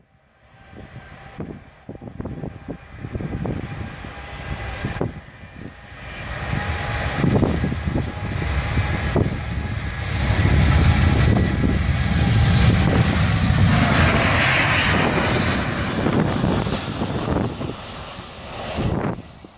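Twin-engine jet airliner speeding along a wet runway, its engines growing from a distant rumble to a loud rush with a strong hiss as it passes about two-thirds of the way through, then fading. Wind buffets the microphone throughout.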